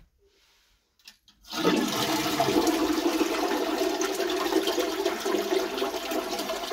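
A 1.6-gallon-per-flush toilet flushing, its tank filled by hand with melted snow water. A few faint clicks come as the handle is worked, then about a second and a half in the water rushes steadily from the tank into the bowl.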